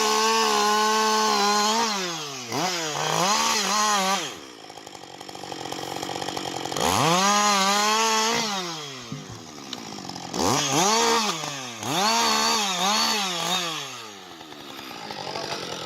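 Two-stroke chainsaw running at high revs, its pitch falling and rising again in short bursts of throttle. It drops to a lower, quieter sound twice, around the middle and near the end.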